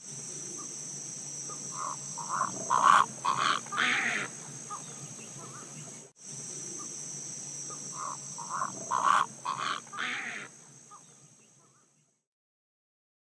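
A steady high insect trill with two runs of short croaking calls, each building to a louder call; the same stretch of sound is heard twice. The sound cuts to silence about twelve seconds in.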